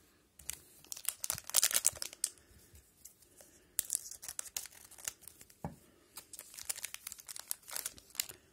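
A trading-card pack's wrapper being torn open and crinkled by hand, in several spells of crackling and tearing.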